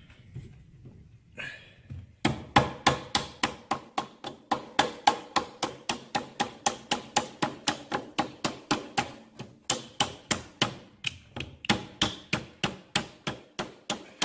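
Metal being struck with a hammer over and over, steady blows about four a second with a ringing metallic tone, starting about two seconds in.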